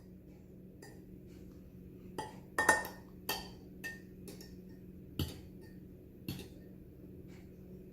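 A utensil clinking against a bowl in irregular, scattered taps as beaten eggs are stirred by hand.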